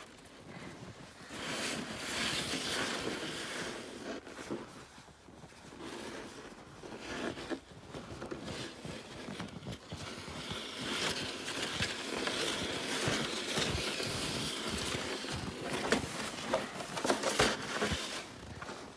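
Red plastic sled dragged over snow: the hull scraping and hissing across the surface, with steps crunching in the snow and a few sharper knocks near the end.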